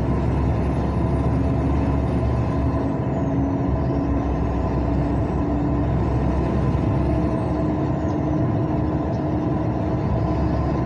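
Steady road and engine noise of a vehicle being driven along a highway in traffic, the engine note stepping up a little a few seconds in.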